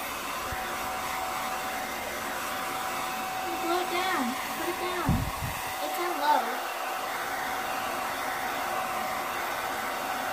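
Handheld hair dryer running steadily on a blowing setting, a constant rush of air with a steady motor whine.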